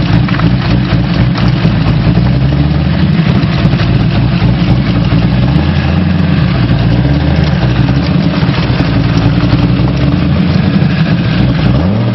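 An engine running steadily, its pitch rising and falling a few times as it is revved or driven.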